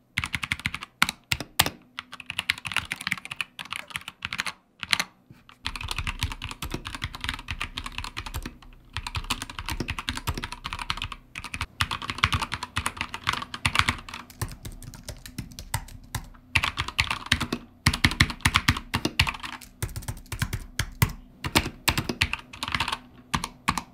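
Typing on two keyboards in turn for comparison: a Keychron K2 mechanical keyboard with red switches, which is noisy, and an Apple Magic Keyboard. About five and a half seconds in, the keystrokes change from a sparser, thinner clicking to a denser, deeper clatter.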